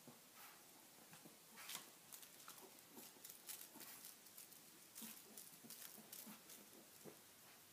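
Faint, irregular clicks and scuffs of a Pomeranian playing with a toy skunk: paws pattering and the toy being handled and mouthed.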